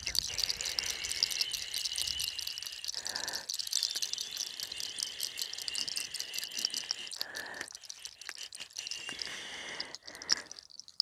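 Wooden comb drawn repeatedly through long hair, giving a dense, fast crackle of fine ticks.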